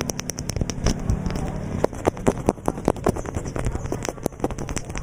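Close-miked ASMR trigger sounds: a dense, irregular run of small clicks, taps and crackles, like bristles or a stick scratching and tapping right at the microphone.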